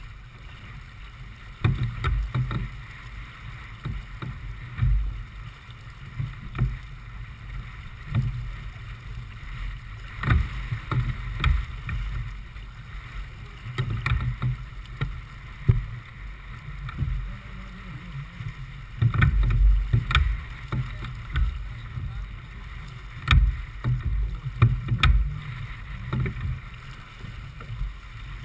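A J/24 sailboat under sail: wind gusting on the microphone and water rushing past the hull, broken by irregular sharp slaps and knocks as the boat meets the chop.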